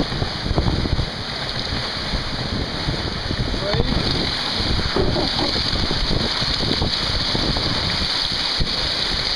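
Wind buffeting the microphone over the steady rush and splash of water along the hull of a sailing yacht moving fast under sail.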